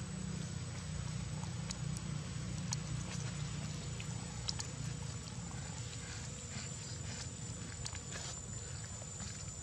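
Outdoor ambience: a steady low rumble and a thin, continuous high-pitched tone, with scattered soft clicks, a sharper one about four and a half seconds in.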